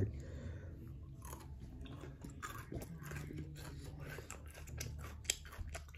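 A person chewing a bite of Feastables milk crunch chocolate bar: faint, irregular crunches from the crunchy pieces, with one sharper crunch about five seconds in.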